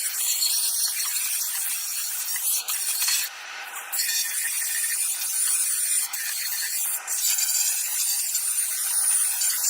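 Sandpaper rubbed by hand over an engine part in a light sanding, a steady scratchy rasp with a brief break a little over three seconds in.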